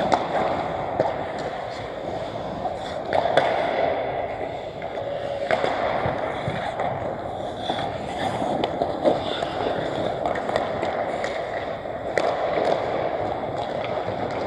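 Pickup ice hockey play: skate blades scraping and carving the ice, with several sharp clacks of sticks hitting the puck or the boards.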